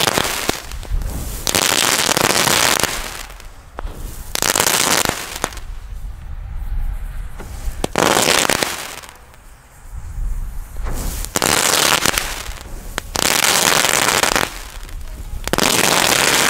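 A chained string of Lesli crackling balls going off one after another on the ground. Each ball bursts into a dense crackle lasting about a second, about seven times, with short gaps between.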